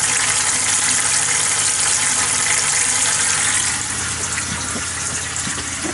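Motorhome taps running water into a basin and sink while air bubbles are flushed out of the freshly filled water system. A steady splashing rush that gets a little quieter about two-thirds of the way through.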